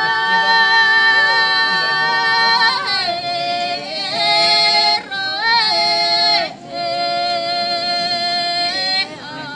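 Voices singing long held notes, changing pitch with short slides between phrases. There is a brief break about six and a half seconds in.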